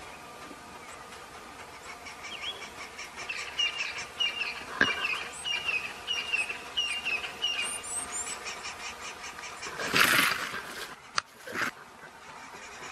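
Evening bush ambience: a steady insect trill, with a series of short repeated chirps for a few seconds. About ten seconds in comes a loud, brief rush of noise, followed by a sharp click and a smaller rush.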